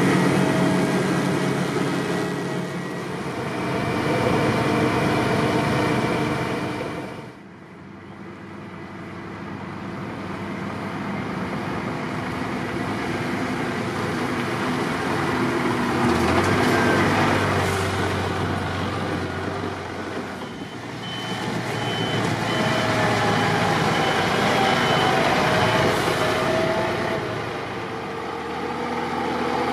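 Heavy diesel vehicles running: first the Vervaet Hydro Trike slurry injector at work, then, after an abrupt cut, the Scania R450 tanker truck's engine swelling as it drives. A run of short high beeps sounds about two-thirds of the way through.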